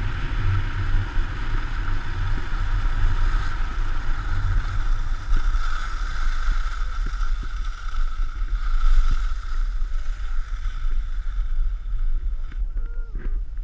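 Wind buffeting a GoPro's microphone and skis hissing and scraping over packed snow on a downhill run; the rush dies away about twelve seconds in as the skier slows, and a few short vocal sounds follow near the end.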